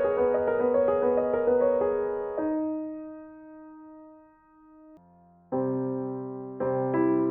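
Instrumental keyboard music with a piano sound: a quick run of repeated notes, then one held note that fades almost to silence, then chords resume about five and a half seconds in.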